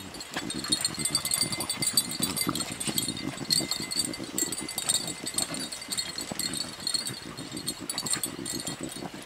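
Beagles sniffing and scuffling through dry leaf litter with their noses to the ground, working a rabbit's scent, with no baying.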